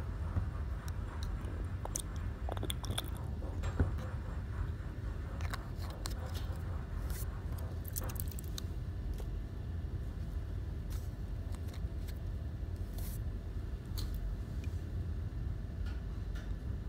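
Small plastic sample vial and its white screw cap being handled, giving scattered light clicks and taps, the sharpest about four seconds in, over a steady low room hum.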